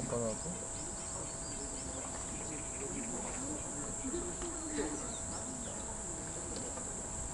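Steady, high-pitched chirring of an insect chorus, with faint distant voices murmuring beneath it.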